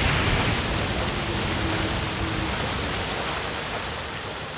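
A powerful jet of water gushing from an overturned water tanker truck's tank and splashing down over a race car. The rushing spray is steady and slowly fades.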